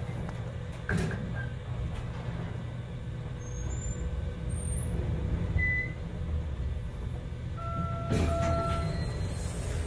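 1990s Otis Series 1 elevator car travelling up between floors: a steady low rumble, with a knock about a second in. Near the end, as the car reaches the next floor, an electronic tone with two pitches is held for about a second over a brief louder rush.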